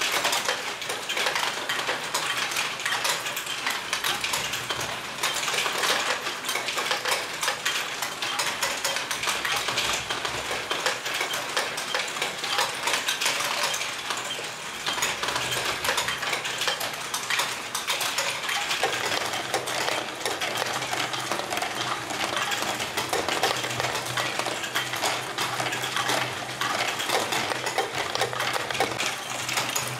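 LEGO Great Ball Contraption modules running: a continuous clatter of small plastic balls rolling and dropping through the modules, mixed with the rattle of LEGO gears and mechanisms. About two-thirds of the way through, a steady low motor hum comes in underneath.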